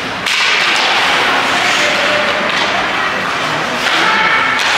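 Ice hockey skate blades scraping and carving on the rink ice, a dense hiss that starts abruptly about a quarter second in.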